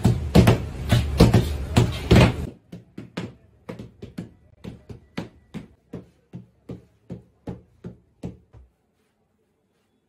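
Heavy mallets pounding a slab of sesame-and-jaggery gajak on a stone block, two men striking in turn: loud, rapid thuds. After about two and a half seconds the blows suddenly drop much quieter, go on evenly spaced at a bit over two a second, and die away about three-quarters of the way through.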